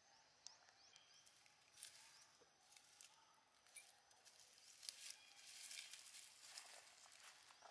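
Faint, scattered crackling rustles of dry leaf litter stirred by a long-tailed macaque moving and foraging on the ground, coming more often in the second half.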